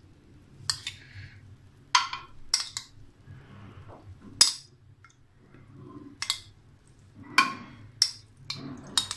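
A metal spoon clinking against plates and a glass baking dish while scooping and placing jelly cubes: about ten sharp, separate taps, the loudest a little past the middle.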